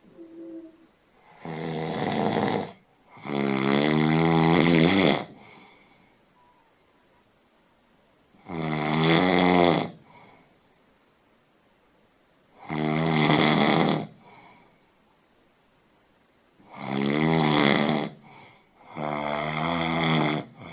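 Snoring: six drawn-out snores, each a second or two long, with pauses of a few seconds between breaths and two of them coming in close pairs. Each snore has a buzzing, pitched drone.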